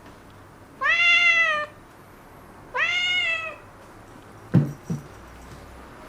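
Kitten meowing twice, two drawn-out meows of just under a second each that rise at the start and then hold, an attention-seeking call to be picked up. Two soft thumps follow near the end.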